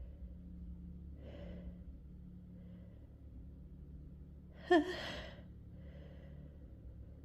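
A woman's breathing as her tickly nose builds toward a sneeze, then a single short, sharp sneeze about two-thirds of the way through, trailing off into a breath out.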